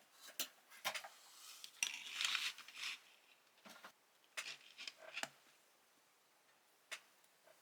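Light rustling and small clicks of objects being handled close by, with a denser crinkling stretch about two seconds in.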